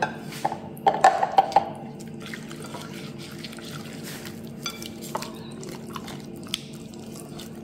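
Hands working raw quail through an oily onion-and-garlic marinade in a ceramic bowl: soft wet squelches and scattered small clicks, over a faint steady hum.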